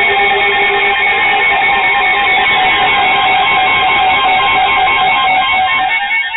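Weather alert radio receivers sounding their warning alarms together: several loud, pulsing electronic beep tones at different pitches. The lowest tone stops about halfway through, and the rest die away near the end, signalling that an alert has been received.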